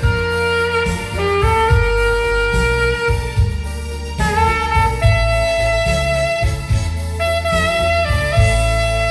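Alto saxophone playing a slow melody in long held notes over keyboard accompaniment with a steady low bass line.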